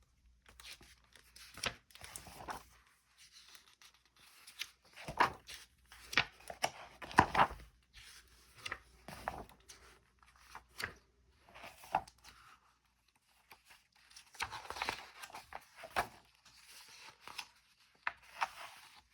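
Pages of a picture book being turned by hand: a paper swish and rustle every second or two, with quiet gaps between.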